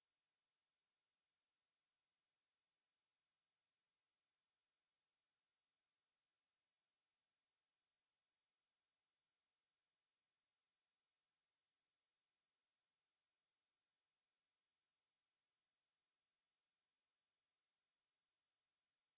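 A steady, unbroken 5503 Hz pure sine-wave test tone, one high-pitched whistle-like pitch held at constant level.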